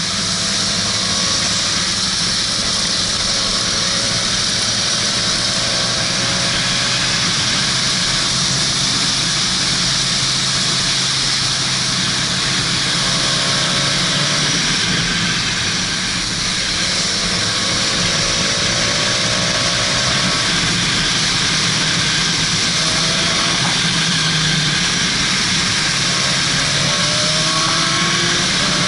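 Motorcycle engine running at road speed under a steady rush of wind. Its note rises several times as it accelerates.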